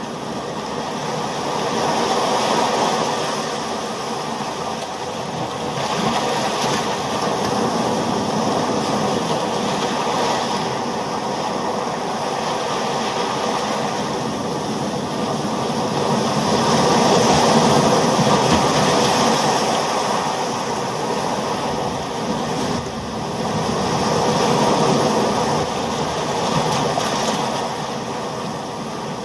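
Ocean surf: a continuous wash of waves that slowly swells and eases several times, loudest a little past the middle.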